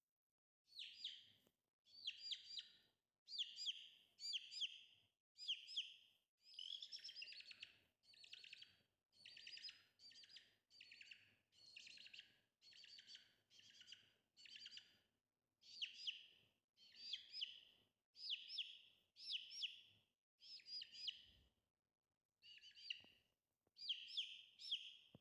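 Domestic chick peeping: bursts of quick, high chirps, about one burst a second, with a pause of a couple of seconds near the end.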